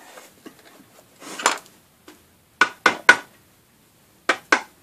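Metal clinks and knocks from a Shopsmith Mark V headstock as its quill is run out with the feed handle to jack out the drive sleeve: a short scrape about a second in, then three sharp clinks in quick succession and two more near the end.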